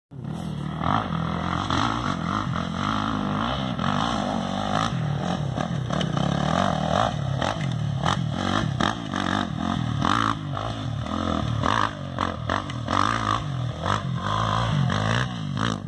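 Off-road race motorcycle engines revving hard, their pitch climbing and dropping over and over as they run the dirt course, with scattered clattering knocks.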